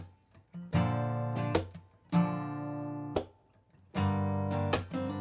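Background music: strummed acoustic guitar chords played in short phrases, with brief pauses between them.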